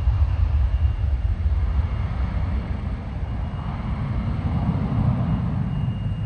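Twin-engine narrowbody jet airliner climbing out after takeoff at full power: a heavy, steady low rumble from its jet engines, with a faint high whine over it, slowly fading as it pulls away.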